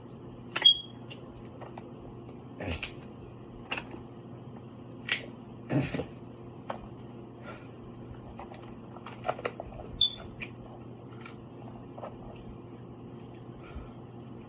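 Close-up eating sounds from a seafood boil: irregular sharp clicks, cracks and smacks, the loudest about a second in and again at about ten seconds, over a faint steady hum.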